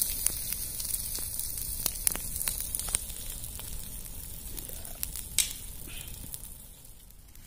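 Dry coconut fronds burning in a big open fire: a steady hiss with frequent sharp crackling pops. The pops thin out and the fire grows quieter over the last few seconds.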